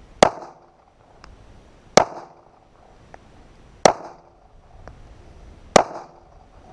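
SIG Sauer P238 micro pistol firing .380 ACP, four deliberate single shots about two seconds apart. Each shot is a sharp crack followed by a short echo.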